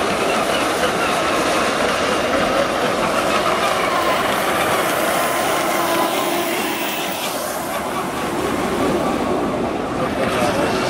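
JetCat SPm5 turbine of a CT 10 tandem-wing RC hydroplane running at speed across the water: a steady high whine over a rushing hiss, a little quieter past the middle.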